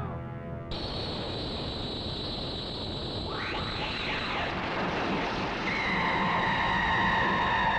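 The tail of a monster's roar cuts off and is replaced by a jet-like rushing sound effect with a steady high whistle. About three seconds in, a rising sweep passes, and from about six seconds two whistling tones slowly fall in pitch, which fits the spinning visual effect of a special attack.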